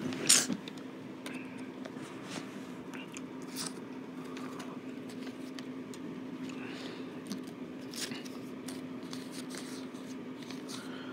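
Faint scattered clicks and rustles of paper cut-outs being handled, over a low steady electrical hum.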